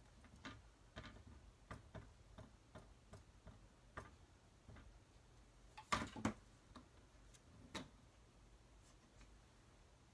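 Light, irregular taps of an ink pad dabbed onto a clear photopolymer stamp to ink it. About six seconds in come two louder knocks, and another near eight seconds, as the stamping tool is handled.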